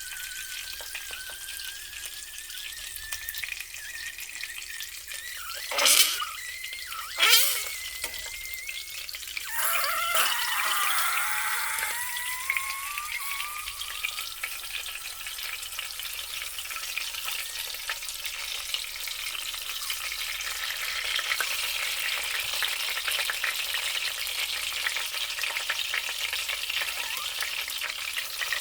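Sausages sizzling in a frying pan, with a thin whistling tone that slowly rises in pitch, and two short, loud fart-like sputters about six and seven seconds in.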